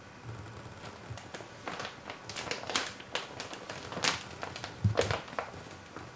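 Clear plastic greenhouse sheeting crinkling and crackling under two kittens' paws and claws as they clamber and tussle on top of it. The crackles and taps come irregularly, the loudest about four and five seconds in.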